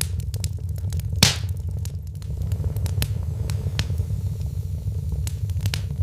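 Wood fire in a fireplace crackling, with irregular small pops over a steady low rumble of the flames and one louder crack about a second in.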